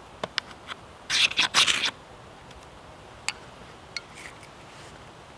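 Knife spine scraped hard down a ferrocerium fire steel three times in quick succession about a second in; a few short faint clicks and ticks come before and after.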